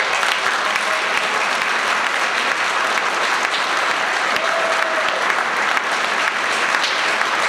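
Audience applauding: dense, steady clapping that starts abruptly and holds evenly throughout.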